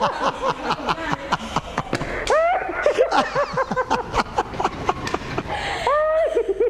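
Uncontrollable laughter: fits of rapid pulsing laughs that rise and fall in pitch, with a drawn-out high laugh near the end.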